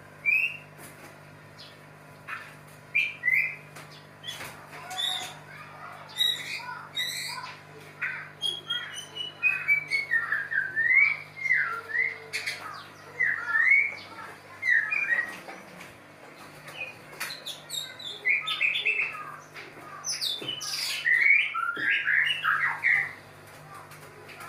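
White-rumped shama singing at mating time: a long, varied run of whistled glides, short chirps and harsh squawks, with the loudest clusters in the middle and near the end. A steady low hum lies under it.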